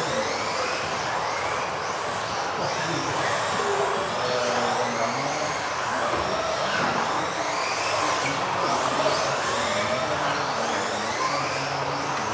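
Several electric off-road RC buggies racing, their motor whines rising and falling and overlapping as the cars accelerate and brake around the track.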